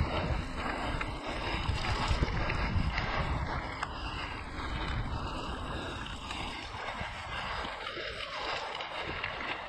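Mountain bike riding down a dirt trail: wind buffeting the microphone, tyres rolling over the ground and the bike rattling with small clicks, easing off after about six seconds.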